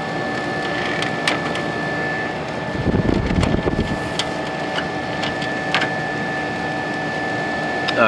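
Comfort Aire 15,100 BTU window air conditioner running, its fan and compressor making a steady hum with a thin high tone; it runs smoothly and is blowing cold. A few sharp plastic clicks come as the front grille panel is opened, with a short low rumble about three seconds in.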